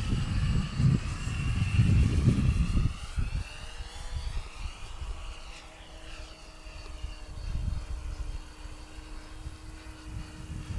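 Electric motor and propeller of a Cosmic Wind 920 mm racing model plane in flight: a high whine whose pitch slides up and down as the plane passes. Wind buffets the microphone with a low rumble, loudest in the first few seconds.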